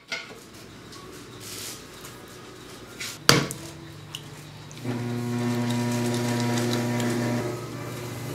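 A lump of clay slapped down hard onto the bat of a potter's wheel about three seconds in. About five seconds in, the electric potter's wheel starts and runs with a steady motor hum.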